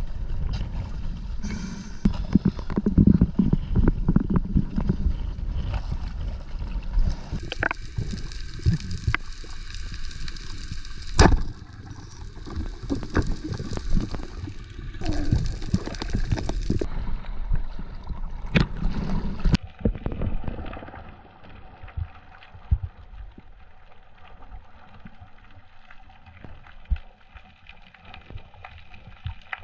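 Water churning and gurgling around an underwater action camera, loud and muffled for about the first twenty seconds with a few sharp clicks, then much quieter with scattered faint clicks.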